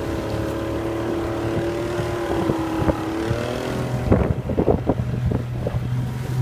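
Motorboat engine running steadily under way, its pitch rising a little about three seconds in, with wind on the microphone. From about four seconds in, a run of sharp knocks and thuds joins the engine.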